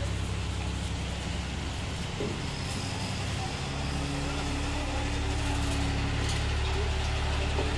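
Vehicle engine idling steadily with a low rumble that eases slightly about two to four seconds in.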